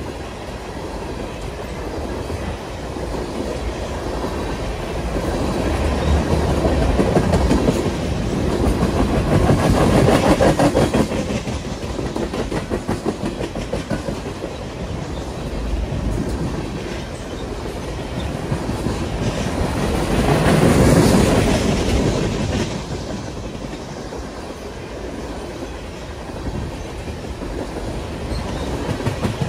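Freight train of tank cars rolling past, steel wheels clattering over rail joints in a continuous clickety-clack. It swells louder twice, about a third of the way in and again about two-thirds through.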